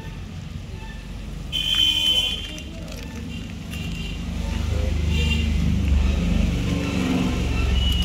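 A motor vehicle's low engine rumble, growing louder over the second half. About a second and a half in there is a brief high-pitched tone lasting under a second.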